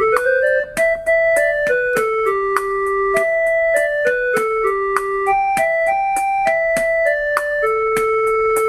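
Casio SA-81 mini keyboard playing a single-line melody of held notes in one of its preset voices. It opens with a quick run up, and short sharp clicks keep a steady pace underneath.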